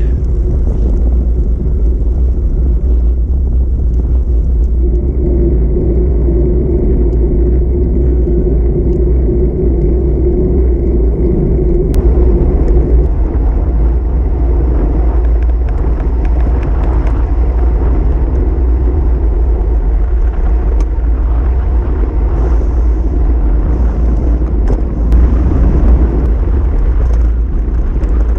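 Steady low rumble of wind on the microphone and tyres rolling on asphalt from a camera mounted on a moving bicycle, with a low hum that swells for several seconds in the first half.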